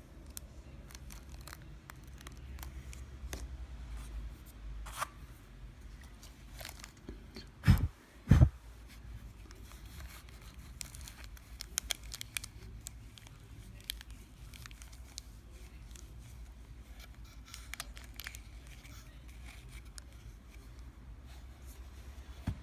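Hands handling a Zippo lighter in its plastic wrapper: crinkling and small clicks, with two loud knocks about eight seconds in.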